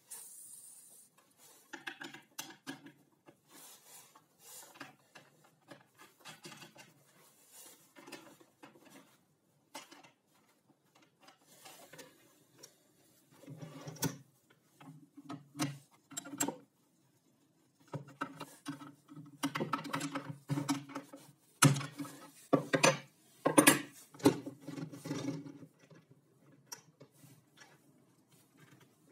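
Small metal hardware (ball bearings, washers, nuts and wing-nut bolts) clinking and tapping as it is handled and fitted to a plywood blade-guide bracket, in scattered short clicks and knocks. The clinks are sparse at first and come thicker and louder in the second half.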